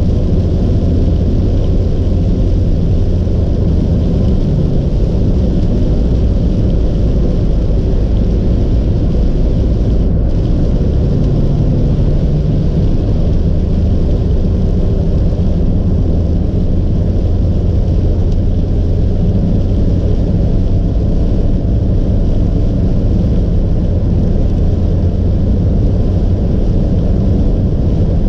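Steady low rumble of road and engine noise inside a car cruising at expressway speed on a rain-soaked road, with a fainter hiss of tyres on the wet surface.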